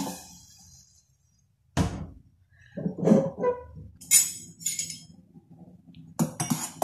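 A metal spoon knocking and clinking against a stainless-steel saucepan on a gas burner: a dull knock about two seconds in, then scattered clinks with a brief metallic ring, more of them near the end as the spoon stirs the okra in the water.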